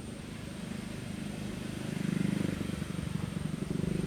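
A small engine running steadily at a distance, its hum swelling louder about two seconds in as it passes.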